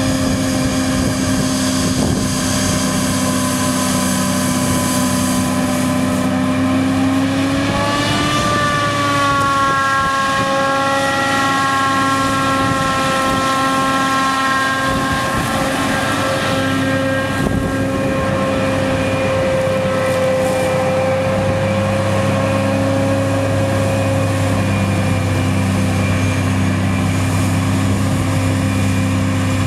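John Deere 8800i forage harvester chopping rye, its engine and machinery running steadily together with the engines of tractors hauling trailers alongside. The steady machine tones bend up and back down about eight seconds in.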